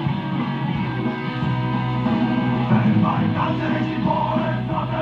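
German rock song playing, with electric guitar and drums; a singing voice comes in about three seconds in.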